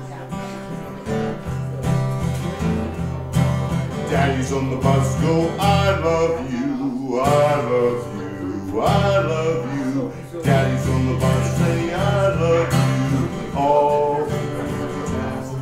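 Band music: strummed acoustic guitar over low bass notes, with a melodic lead line entering about four seconds in.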